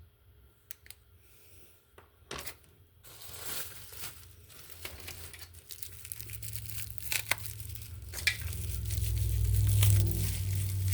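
Packing wrap being pulled open by hand, crinkling and tearing. It starts about three seconds in, after a near-quiet stretch with a few clicks. A low rumble builds over the last few seconds.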